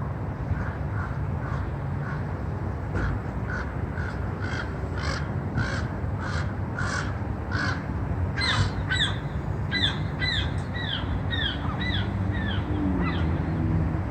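A bird giving a rhythmic knocking call, about two short knocks a second, growing louder over the first several seconds. A little past halfway this changes to a run of quick downward-sliding notes at the same pace, which fade near the end.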